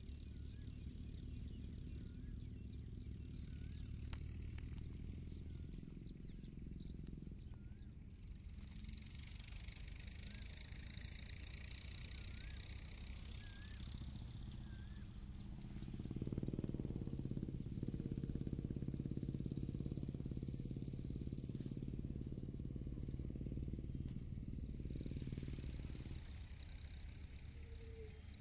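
Outdoor field ambience: a steady low rumble, louder for several seconds past the middle, with faint bird chirps in the first half.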